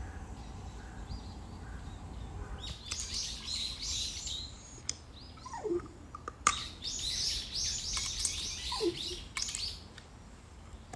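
Small birds chirping in quick bursts of high twittering, starting about three seconds in. Twice there is a short lower call falling in pitch, and a few sharp clicks.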